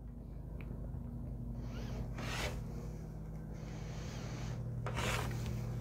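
Rotary cutter rolling along the edge of a clear acrylic quilting ruler, slicing through cotton fabric on a cutting mat: two short cuts, about two seconds in and about five seconds in, trimming the sides of a half-square triangle block.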